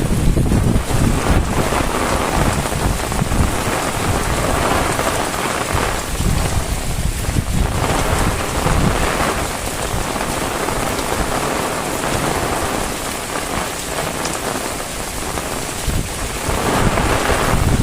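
Heavy rain falling steadily, a dense hiss of drops, with low rumbling swells that come and go, strongest near the start and near the end.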